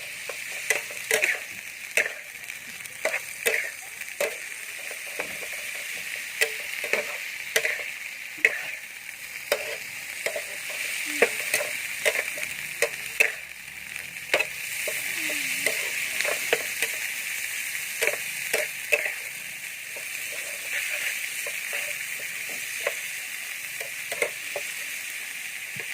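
Food sizzling as it fries in a pan, a steady hiss, with frequent irregular clicks and knocks of a utensil stirring it.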